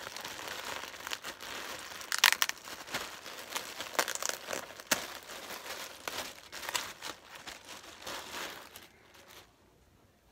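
Clear plastic packaging bag crinkling and crackling as it is handled and opened, with sharp crackles throughout, the loudest a little over two seconds in. It stops about a second before the end.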